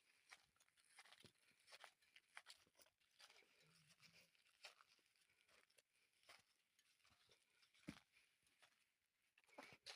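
Near silence, with faint scattered clicks and crackles at irregular intervals.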